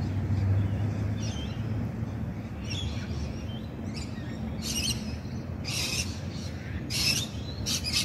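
Wild birds calling in the trees: light chirps at first, then from about halfway a run of four short, harsh calls, over a steady low rumble.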